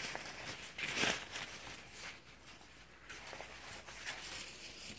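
Rustling and swishing of umbrella canopy fabric as a shopping bag sewn from it is handled and unfolded, with louder swishes at the start and about a second in.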